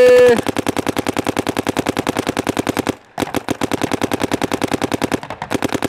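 Planet Eclipse CS3 electronic paintball marker firing in rapid strings, about a dozen shots a second, with a brief break about three seconds in. A loud held voice rings out over the first half second of shots.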